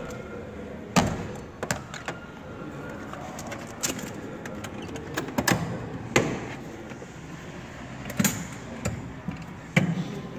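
A string of sharp knocks and clicks, about seven over ten seconds and the loudest about a second in, from hands working around the driver's seat and footwell inside an ambulance cab.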